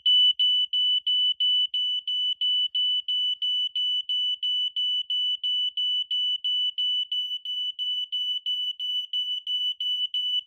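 Prosafe battery-operated smoke alarm in full alarm, set off by aerosol deodorant spray: a loud, high-pitched tone beeping rapidly and evenly, about three beeps a second.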